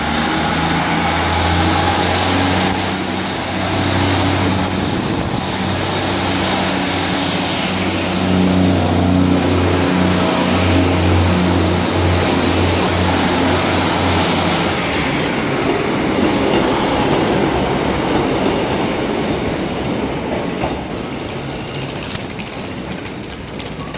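Diesel multiple unit train departing: its underfloor diesel engine runs with a steady low hum while the carriages roll close past with a dense rumble of wheels. About fifteen seconds in the engine hum drops away, and the sound slowly fades as the train moves off.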